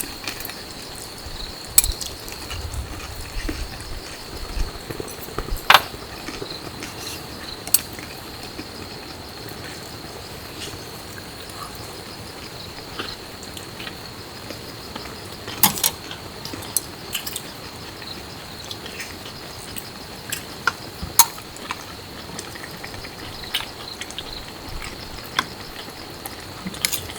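Outdoor ambience: a steady high-pitched insect drone with scattered light clicks and taps.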